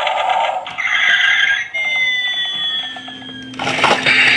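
Electronic sound effects from a battery-powered Road Rippers toy car: a synthesized engine noise, then a long whine that slowly falls in pitch. A little over three and a half seconds in, a louder rushing noise with a steady low hum cuts in.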